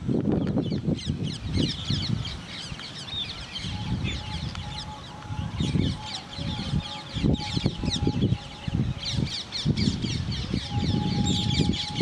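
Outdoor birdsong: many short, high chirps in a dense, continuous chorus, with a faint steady tone held through the second half and irregular low rumbling underneath.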